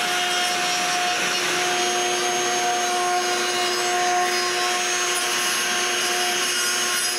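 Router running steadily at high speed, cutting a small roundover along the bottom edge of a pallet-wood drawer pull.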